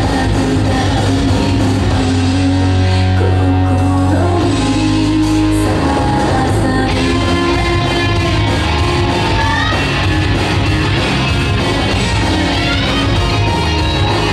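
Rock-style song with singing and guitar, played loudly and steadily, with a change in the arrangement about six or seven seconds in.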